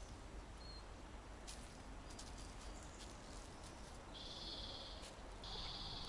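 Quiet woodland ambience with a few faint rustles and a brief high chirp, then two buzzy, high-pitched songbird trills about a second long, one about four seconds in and one near the end.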